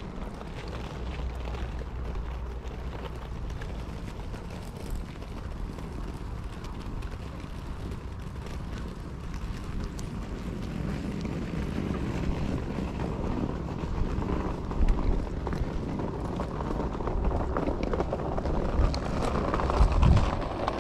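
Wind buffeting the microphone: a steady low rumble that grows a little stronger in the second half.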